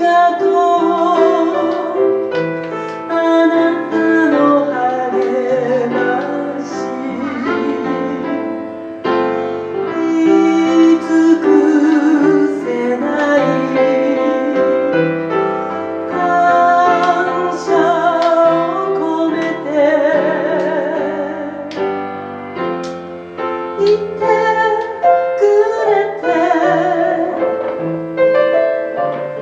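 A woman singing into a microphone with live piano accompaniment; her held notes carry a marked vibrato.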